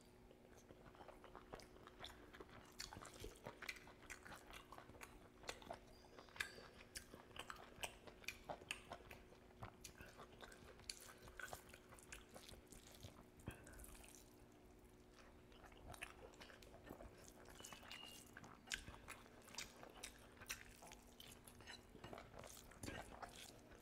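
Close-miked chewing and lip-smacking of a person eating curry and rice, with irregular wet clicks and squishes as fingers mix rice into the curry. There is a brief lull about two-thirds of the way through.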